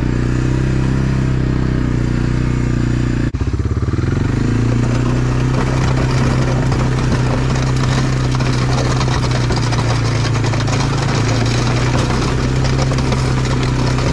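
1999 Honda FourTrax 300 4x4 ATV's single-cylinder four-stroke engine running steadily as the quad pushes snow with its front plow blade. There is a brief break in the sound about three seconds in, after which the engine carries on with more hiss over it.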